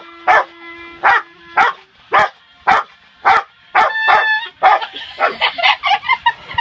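Rottweiler barking along to a clarinet, about two barks a second. A held clarinet note sounds under the first second of barks and another about four seconds in. Near the end the sounds come quicker and laughter joins in.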